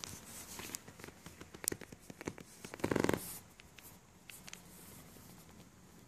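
Sheltie puppy digging and nosing through a pile of towels and blankets: fabric rustling with quick scratchy clicks, and a louder rubbing burst about three seconds in, then quieter rustling.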